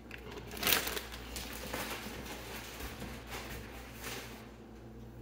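Crinkling of a plastic bag of shredded cheese being handled, in a few short rustling bursts, the loudest about a second in, dying down near the end.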